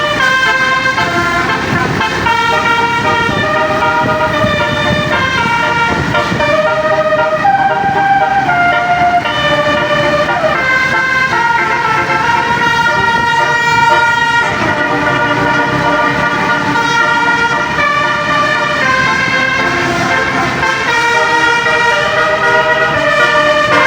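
A bus's multi-tone telolet horn plays a melody: a chord of horn tones steps from note to note without a break, with a low rumble underneath.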